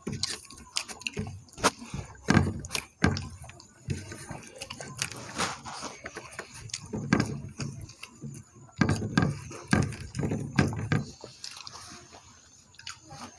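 Two people eating dal and rice with their hands: fingers working the rice on the plates, chewing and mouth smacks, heard as many short irregular clicks.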